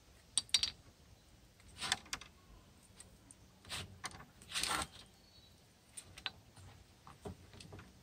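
Grilled meat being pulled off wooden skewers into a metal bowl: scattered light clicks and scrapes of the skewers and meat against the bowl, with a longer scrape about halfway through.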